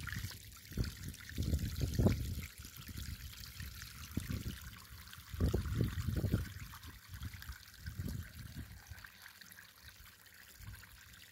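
Pond water gushing out of a pond vacuum's discharge hose and splashing onto algae sludge on a lawn, in uneven surges. The flow slackens toward the end.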